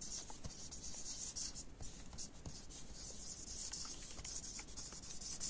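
Marker pen writing on a sheet: an uneven run of short scratchy strokes as letters are written out.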